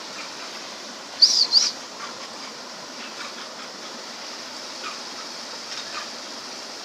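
Two quick high-pitched bird calls about a second in, over the steady rush of river water.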